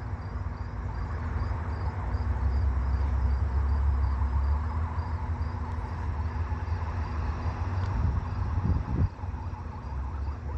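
Steady low rumble of a slow-moving freight train's diesel locomotive approaching, a GE ES44AC on the point, loudest a few seconds in. Insects chirp in a high, evenly repeating pattern behind it.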